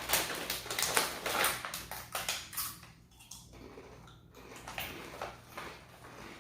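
Crunchy packaged churro snack sticks being bitten and chewed: a rapid run of crackling crunches, loudest in the first three seconds, then fainter.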